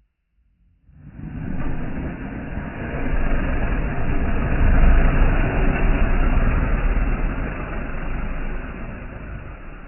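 Slowed-down rush of blown air with a deep rumble: an artificial hurricane gust. It starts about a second in, swells to a peak midway and fades toward the end.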